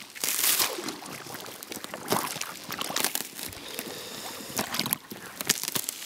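Water splashing and trickling in a hole in the ice as a hand holds a perch at the surface, with sharper splashes about half a second in, at about two seconds and near the end.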